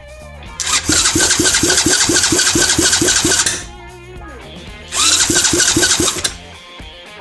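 Bare Honda single-cylinder motorcycle engine being spun by its electric starter, fed straight from a battery lead: two bursts of cranking, about three seconds and then just over a second long, each a quick even chug of about five compression strokes a second. Each burst stops short and the engine does not run on by itself.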